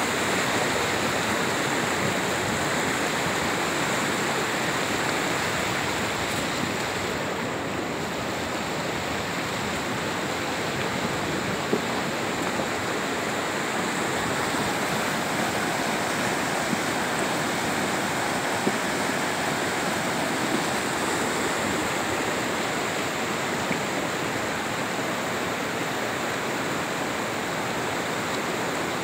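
Muddy floodwater rushing fast and turbulent over a boulder-strewn riverbed, a steady roar of churning water, with a few faint brief knocks.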